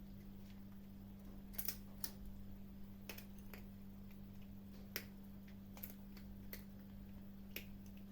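Kittens eating, with about nine sharp, irregular crunches of hard food, over a steady low hum.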